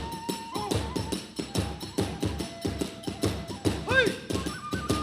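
Kagura festival music: a fast, even beat of drum and hand-cymbal strikes under a transverse flute playing long held notes that step up and down, with a short swooping call about four seconds in.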